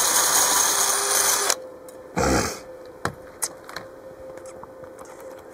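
Cordless die grinder with a small wire wheel running against a stainless steel exhaust pipe, a steady high whirring grind that cuts off about one and a half seconds in. A short low sound and a few light clicks follow as the tools are handled.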